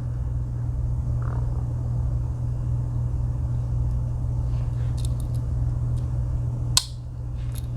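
Steady low rumble in the background, with a few faint ticks and then one sharp click about seven seconds in: the small pen blade of a Swiss Army knife snapping on its backspring.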